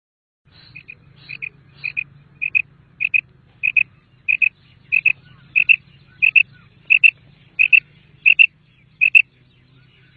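Common quail calling: a run of about fourteen short, high double notes, roughly one and a half a second, growing louder over the first few seconds.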